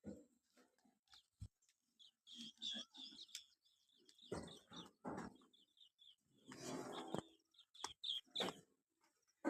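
Faint animal calls, a string of short cries with one longer call about two-thirds of the way through, over birds chirping.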